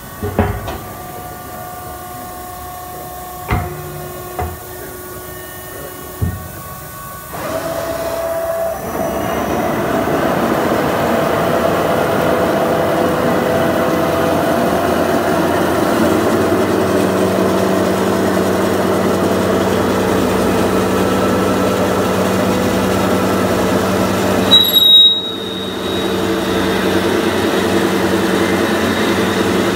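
Steel-beam CNC drilling line (1997 Ficep 1221B) working a steel channel. At first a steady machine hum with a few sharp clunks. From about seven seconds in, the vertical spindle's twist drill runs and cuts into the steel with a steady, many-toned grinding drone, broken about three quarters through by a brief loud squeal.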